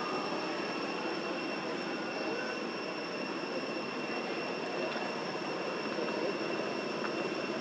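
Steady outdoor drone of insects at a constant high pitch over an even hiss, with a few faint short chirps.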